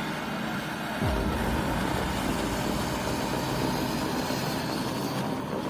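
A heavy machine's engine running steadily, with a low falling sweep and a slight rise in loudness about a second in.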